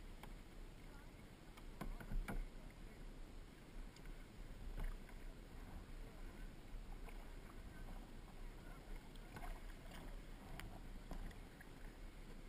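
Kayak paddling on the water: paddle blades dipping and splashing in short, irregularly spaced strokes over a steady low rumble.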